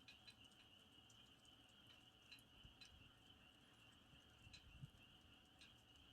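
Faint campfire: wood crackling with a few scattered sharp pops, over a steady high trill of crickets.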